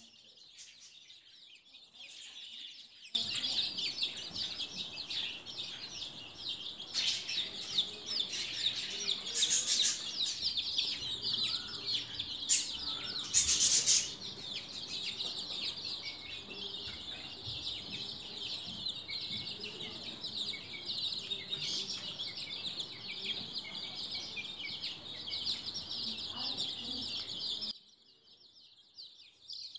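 A flock of two-week-old chicks peeping constantly, a dense chorus of high, short cheeps. It starts abruptly about three seconds in and cuts off shortly before the end, with a few louder peeps in the first half.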